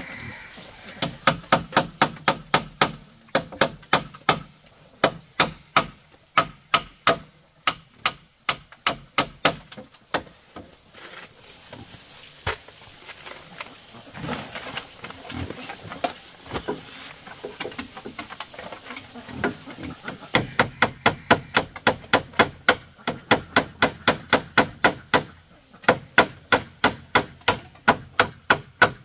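Claw hammer striking, nailing a tarp onto bamboo poles, in quick runs of sharp blows a few a second, with fewer blows through the middle.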